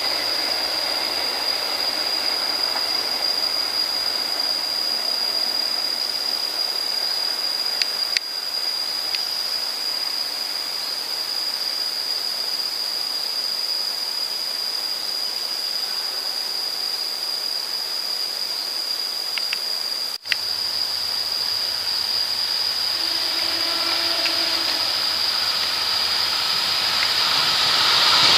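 A steady high-pitched insect drone over the faint running noise of a distant train. Near the end an approaching KAI diesel locomotive grows louder.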